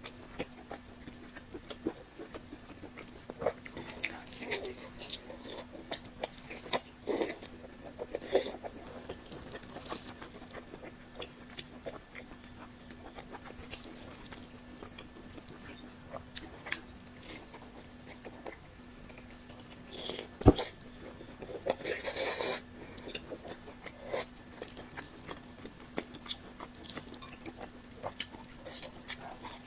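A person chewing food close to the microphone, with wet mouth sounds and smacks. One sharp click stands out about two-thirds of the way through, followed by a brief rustle.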